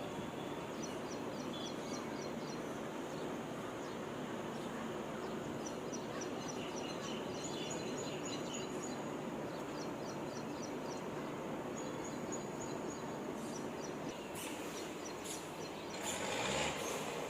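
Steady outdoor background hiss with birds chirping in quick series of short high notes over it. A louder swell of noise comes near the end.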